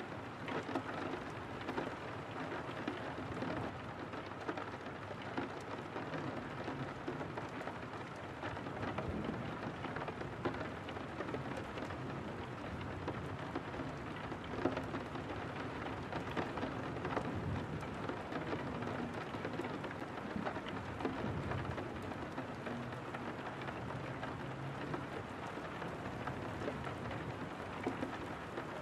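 Steady rain falling against a window pane: an even hiss of many drops, with a low rumble underneath that swells now and then.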